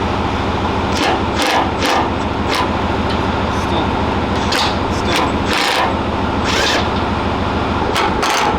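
A motor or engine drone running steadily, with a string of short, sharp noisy bursts over it, some close together and one longer burst a little past halfway.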